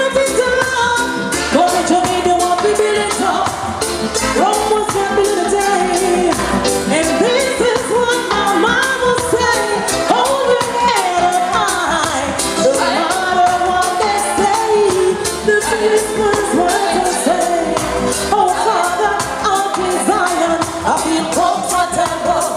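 Reggae music played over a sound system, with a woman singing live over the riddim.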